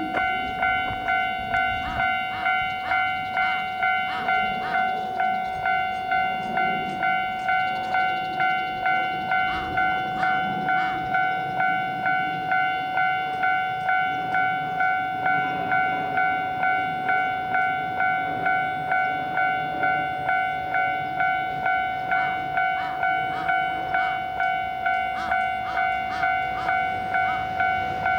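Japanese level crossing warning bell ringing steadily in even strokes, about one and a half a second. A diesel train rumbles over the crossing beneath it, its wheels clicking in groups over the rail joints.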